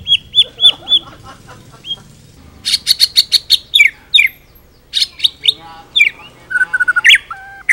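White-rumped shama singing a varied song: a quick run of repeated down-slurred whistles in the first second, then after a pause a burst of sharp rapid clicks, sweeping whistled notes, and near the end a short stuttering run of lower notes.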